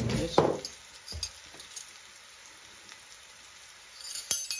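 Chicken tikka pieces sizzling faintly in a steel pan on a gas hob. A thump and a knock come in the first second or so, and a sharp clink near the end.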